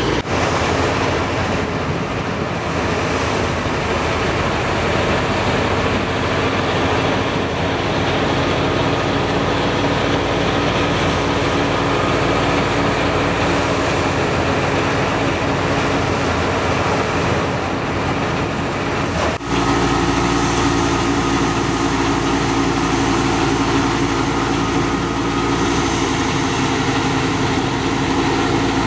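A wheat thresher driven by an Al Ghazi tractor runs steadily, its drum and fan whirring over the tractor's engine as straw is fed in. About 19 seconds in the sound cuts abruptly to a steadier, more evenly pitched hum.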